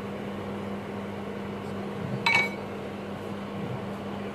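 A single short glass clink about two seconds in, as the wooden spatula is laid down on a glass bowl, over a steady low background hum.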